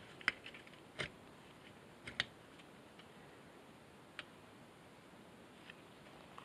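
A few scattered light metallic clicks and clinks as the electric winch's cable spool, wire rope and hook are handled during reassembly, most in the first couple of seconds and one about four seconds in.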